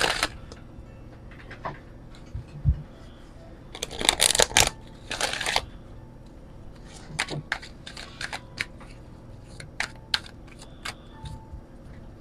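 A deck of oracle cards being shuffled by hand: quick flurries of card edges flicking together near the start and again about four and five seconds in, then scattered single card clicks as the deck is handled. A light thump comes about two and a half seconds in.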